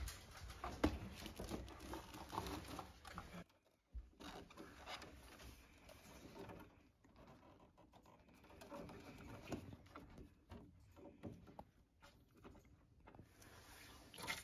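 Faint handling noises: rustling with small irregular clicks and taps as hands work a chemical dosing nozzle onto a boiler's drain port.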